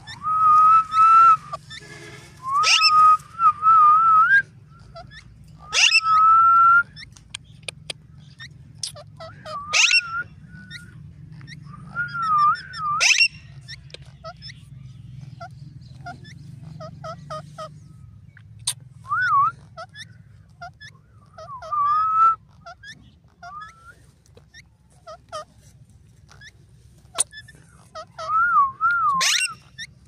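White ring-necked parakeet giving short whistled calls, some wavering up and down in pitch, in bursts every few seconds, the loudest in the first few seconds, with brief sharp high notes in between.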